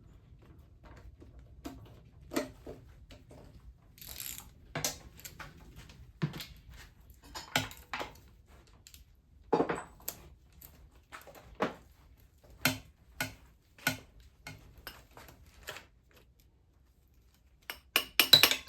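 Irregular metallic clinks and knocks of sockets and a ratchet being worked on engine main bearing caps and set down on metal. Near the end, after a brief hush, a fast regular beat starts.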